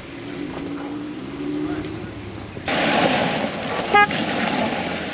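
A vehicle engine running, then a sudden louder rush of noise about two and a half seconds in. About four seconds in, a vehicle horn gives one short toot.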